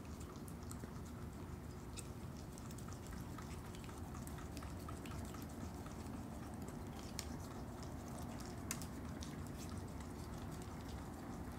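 Opossum chewing and biting an ice cream drumstick: irregular small clicks and crunches, one sharper about three-quarters of the way through, over steady low background noise.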